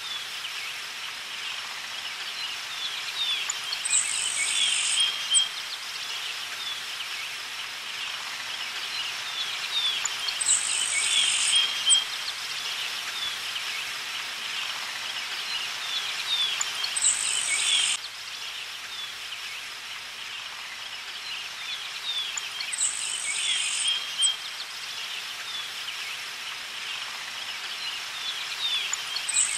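Birds chirping and insects trilling, with a short high trill of about a second that comes back roughly every six and a half seconds.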